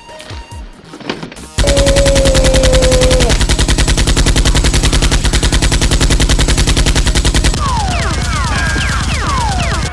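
Automatic gunfire sound effect: a long burst of very rapid machine-gun shots that starts abruptly a second and a half in, with high falling pings joining it over the last two seconds.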